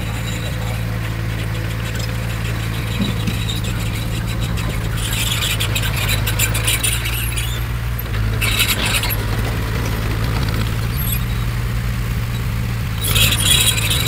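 Komatsu D20P bulldozer's diesel engine running steadily under load, with high squealing and rattling from the steel tracks and undercarriage coming in three times: for about two seconds from five seconds in, briefly around eight and a half seconds, and near the end.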